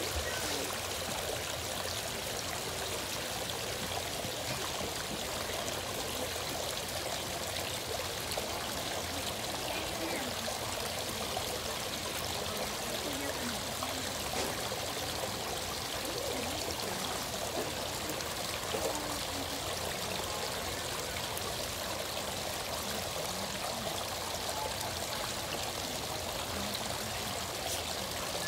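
Small waterfall spilling over rocks into a koi pond: steady trickling and splashing water.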